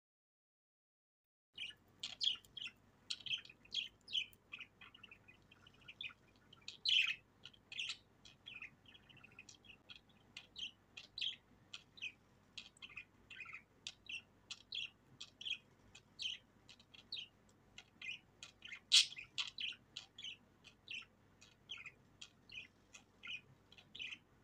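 Several budgerigars chirping and chattering: a steady stream of short, quick, high chirps, starting about a second and a half in.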